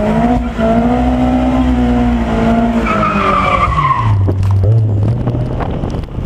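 Honda S2000's four-cylinder engine, breathing through an HKS exhaust with a test pipe, held at high revs while the tires squeal in a donut. About four seconds in the revs fall away and the engine settles to a low idle.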